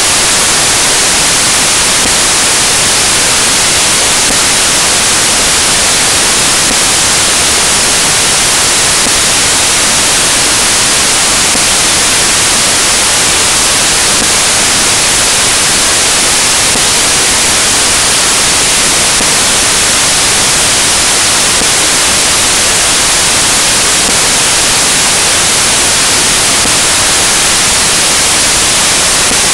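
Loud, steady static hiss like white noise, unchanging throughout, with no other sound heard through it.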